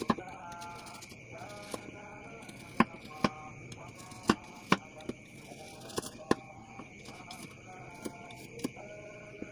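Kitchen knife chopping an onion on a wooden cutting board: about a dozen sharp, irregular taps as the blade strikes the board. A steady high-pitched whine and short runs of faint pitched calls sound in the background.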